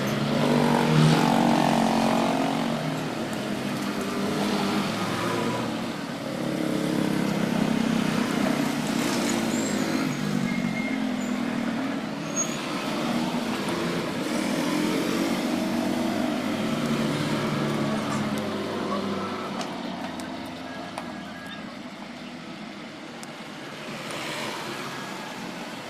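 Motor vehicle engines running and passing, with their pitch rising and falling.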